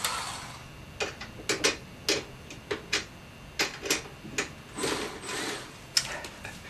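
Irregular metal clicks and knocks, about a dozen, as a motorcycle trailer hitch and its brackets are shifted and lined up by hand, with a short scraping rustle about five seconds in.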